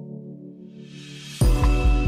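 Background music: a held chord with a swell rising under it, then a beat with heavy bass comes in about one and a half seconds in.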